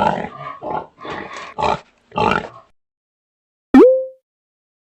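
A pig grunting and oinking in a quick run of rough grunts. About three and three-quarter seconds in, a loud short click-and-tone sound effect slides up in pitch and cuts off.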